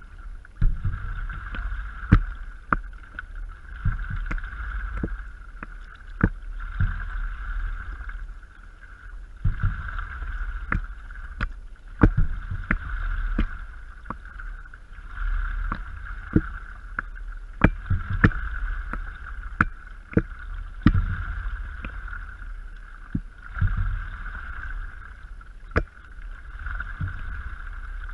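Stand-up paddleboard being paddled through calm water: water washing along the board swells and fades every few seconds with the paddle strokes, with many sharp splashes and drips from the paddle blade over a low rumble.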